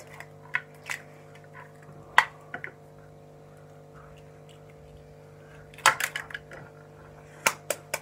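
Eggs being cracked on the rim of a stainless steel bowl: sharp taps and shell cracks, a few in the first three seconds and a quick cluster about six seconds in, then two more near the end, over a steady faint hum.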